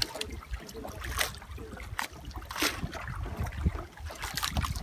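Sea water sloshing and slapping against the hull of a small outrigger fishing boat, in irregular surges over a steady low rumble.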